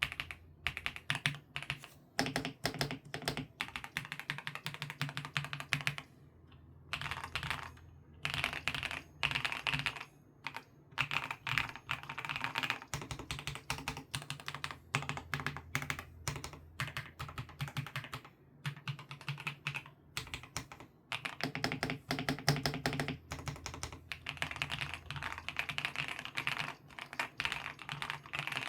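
Mechanical keyboard with QSENN Bsun Brown Sugar Latte switches (Monstar Gear X504 Pro) being typed on fast. The key clicks run in long dense runs with a few brief pauses.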